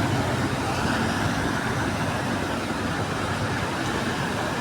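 Steady street traffic noise: vehicle engines running with a continuous rushing hiss, unchanging throughout.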